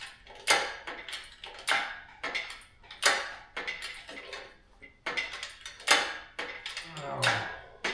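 A string of sharp metallic clicks and clanks, roughly one every half second to a second, from an engine hoist and engine stand being worked and shifted to line up a small-block engine.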